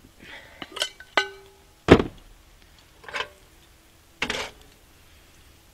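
Cast iron cookware handled over a camp stove, a small cast iron Dutch oven and a frying pan: a clank with a brief metallic ring about a second in, then a heavy knock just before two seconds as cookware is set down. Lighter rattles and a short scrape follow.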